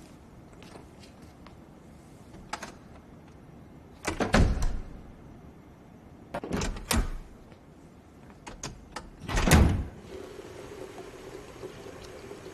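A wooden door banged and rattled in three loud bursts, about four, six and a half and nine and a half seconds in, with a few small clicks between them. A steady low hum begins at about ten seconds.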